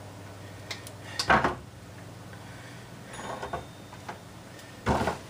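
Handling knocks of a router and its plywood insert plate being lifted out and moved over a wooden workbench: a loud clunk about a second in, a light rattle, and another loud knock near the end as it comes down on the bench.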